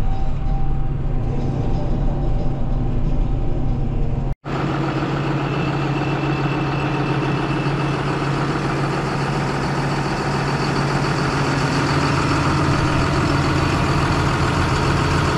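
Heavy farm-machinery diesel engine running steadily. The sound cuts out abruptly about four seconds in and picks up again as a second steady engine drone with more hiss on top.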